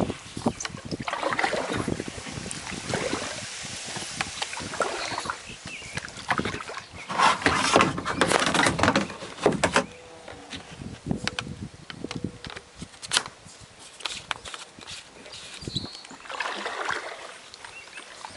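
Kayak being paddled: irregular splashes and sloshing of the paddle in the water, with trickling drips, louder for a few seconds near the middle.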